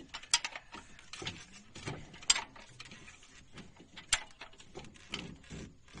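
Sharp metallic clicks and small knocks from hand tools and parts on a Maruti Suzuki Alto engine under hand work during a tappet clearance adjustment. There are three distinct loud clicks: one near the start, the loudest a little over two seconds in, and another about four seconds in.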